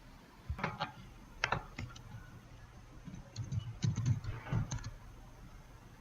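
Computer keyboard being typed in short, irregular runs of keystrokes, a few near the start and a denser run in the second half, as an IP address is keyed in.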